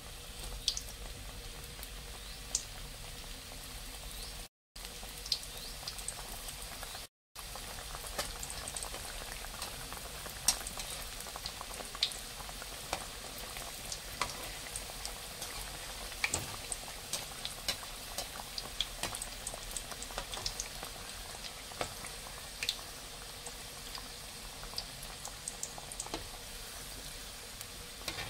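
Spring rolls frying in hot oil: a steady sizzle with frequent sharp pops and crackles. The sound cuts out twice for a moment a few seconds in.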